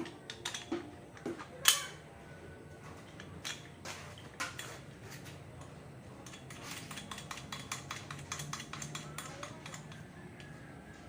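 Metal clinks and knocks from adjusting a steel motorcycle engine stand. There is one sharper clank about two seconds in and a run of quick light clicks in the second half.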